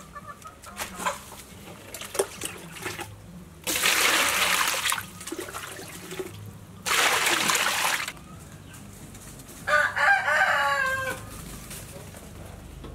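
Water splashing in two pours of about a second each, then a rooster crows once near the end.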